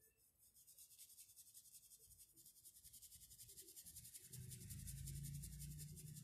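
Near silence, with the faint quick scratching of a paintbrush working paint over rough, porous wood in fast, even strokes. A faint low hum comes in about four seconds in.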